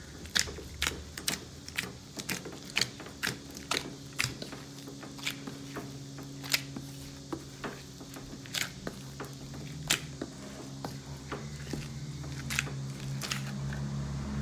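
A gloved hand kneading soft dough against a stainless steel bowl, making sharp clicks, about two a second at first and sparser later. A low steady hum comes in behind it about a quarter of the way through and grows louder near the end.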